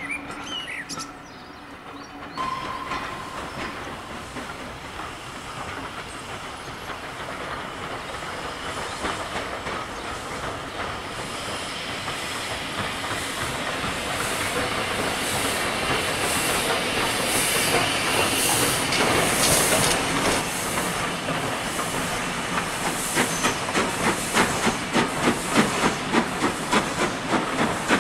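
Steam locomotive working a train, its exhaust beats and hiss of steam growing steadily louder as it approaches, with sharp, regular chuffs over the last few seconds.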